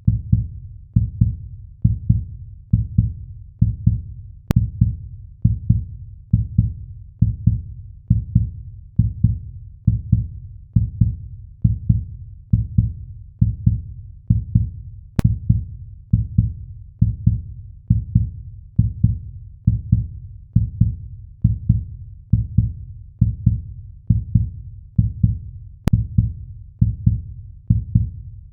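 Heartbeat sound effect: a steady rhythm of deep, low thumps, a little under one beat a second.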